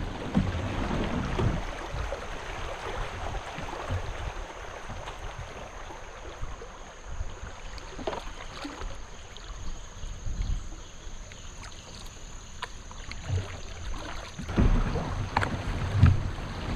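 Kayak on the water: water noise around the hull with a few light knocks, and gusts of wind buffeting the microphone at the start and again near the end.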